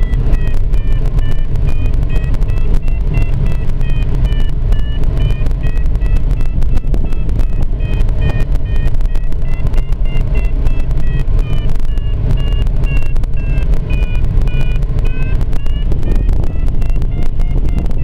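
Steady rush of airflow in a glider's cockpit, the loudest sound. Over it the audio variometer beeps all the way through, its pitch slowly wandering up and down as the lift changes while the glider circles.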